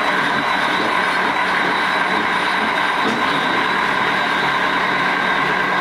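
Large metal-turning engine lathe running steadily, giving a constant mechanical whine with several held tones over a low hum.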